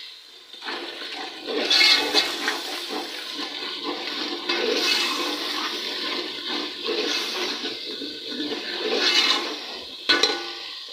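Masala frying in hot oil in an aluminium pot, sizzling loudly as a steel ladle stirs it, the sizzle surging every couple of seconds. There is a sharp knock near the end.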